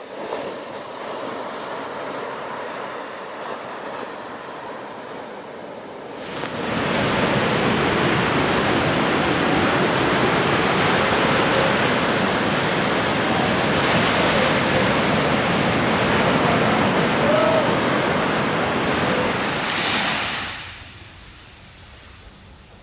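Sea surf: waves wash in with a steady rushing hiss. About six seconds in a much louder wave rolls in and keeps rushing, then dies away a couple of seconds before the end.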